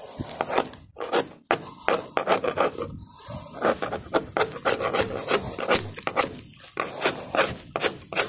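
A hand chisel pushed without a hammer, scraping and prying fiberglass laminate and core off a boat deck in quick, irregular strokes, about three a second.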